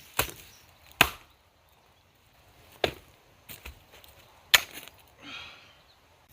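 Sharp blows on wood, four loud strikes a second or two apart with a couple of lighter taps between them, then a short rough rasp near the end.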